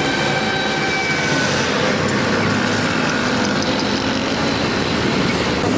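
Steady road traffic noise, with vehicle engines running and passing.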